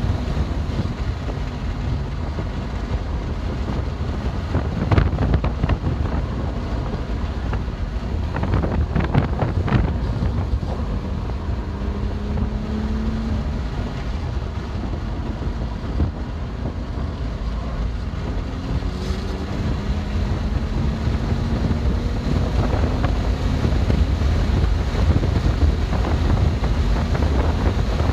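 A BMW M2 Competition at speed: steady low wind and road rumble, with the twin-turbo straight-six's note faintly rising through the revs several times. A few sharp knocks come about five and nine seconds in.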